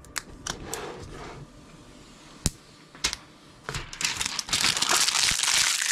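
Thin protective plastic film being peeled off a glossy plastic clock face: a few light clicks and crackles, one sharper click about halfway, then a loud, sustained crackling from about four seconds in as the film comes away.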